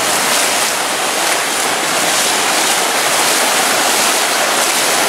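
Floodwater from a burst water main gushing and churning in a steady, loud rush of water.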